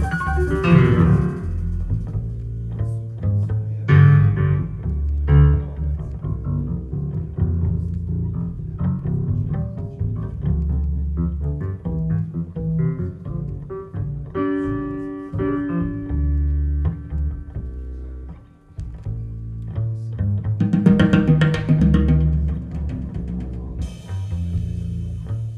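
Recorded music with a deep, plucked double-bass line and string instruments, played back through a Gryphon high-end stereo amplifier and loudspeakers in a demo room.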